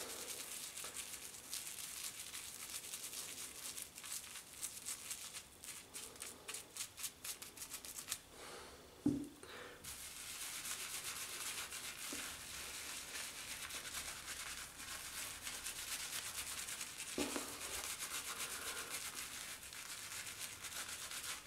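Boar-bristle shaving brush scrubbed against a hand-held puck of Palmolive shaving soap in quick repeated strokes to load it, then after a brief pause and a single knock about nine seconds in, the loaded brush rubbing lather onto the face with a steady bristly scrubbing.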